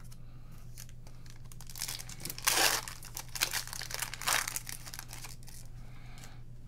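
A trading-card pack wrapper being torn open and crinkled in the hands. It comes as a burst of rustling and tearing for about three seconds, starting a couple of seconds in, with the loudest tear near the middle.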